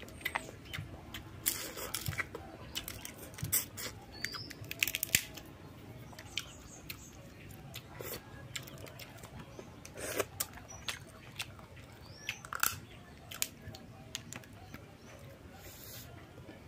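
Cooked crab shells being cracked and pulled apart by hand, with chewing, sucking and lip-smacking: irregular sharp cracks and clicks, bunched in clusters. A few faint bird chirps sound high above.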